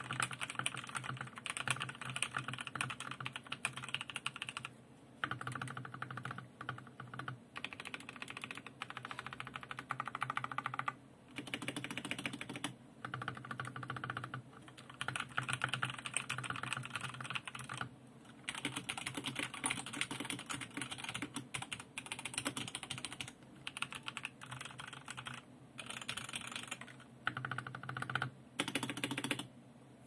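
Fast, continuous typing on a Yeyian Spark mechanical keyboard with linear Otemu Red switches lubricated with low-viscosity silicone: a dense clatter of keystrokes broken by short pauses every few seconds, stopping near the end.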